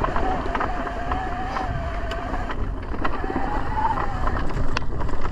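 Mountain bike being ridden down a dirt trail: a steady rumble of tyres and wind with a wavering hum, broken by sharp clicks and knocks from the bike over bumps.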